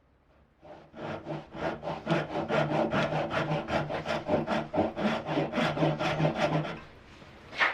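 Hand saw cutting oak in quick, even strokes, about four a second, stopping shortly before the end, followed by a single sharp knock.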